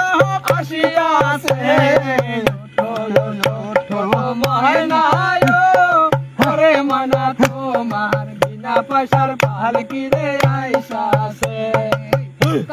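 A thila, a clay water pot, drummed by hand in a steady quick rhythm of deep booming thumps and sharp slaps, about three strokes a second. A man sings a Bhandari devotional folk song over it.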